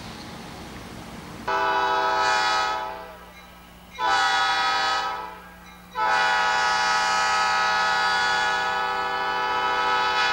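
Georgia Southwestern diesel locomotive horn blowing three blasts. The first two are short, starting about a second and a half in and about four seconds in. The third is held for about four seconds and cuts off near the end.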